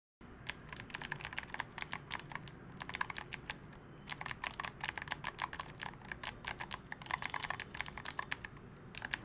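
Typing on an Akko 5075S gasket-mount mechanical keyboard fitted with Otemu clicky gold switches and foam and tape mods: fast runs of sharp key clicks with short pauses between them.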